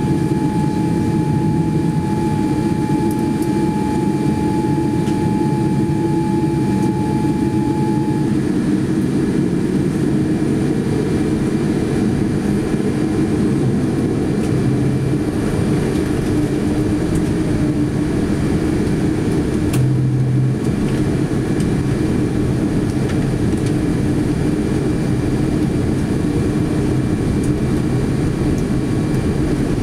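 Steady cabin drone inside a Boeing 787-9 airliner waiting before takeoff, the air and systems noise of the aircraft, with a thin steady whine that stops about eight seconds in.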